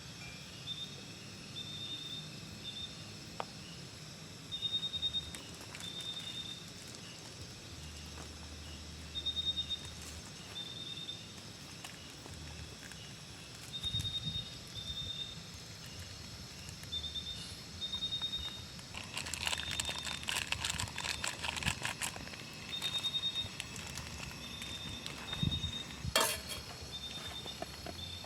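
Outdoor camp ambience: an animal repeats short, high, pulsed chirps every second or two over a steady hiss. About twenty seconds in there are a few seconds of crackling rustle, and a single sharp click a few seconds before the end.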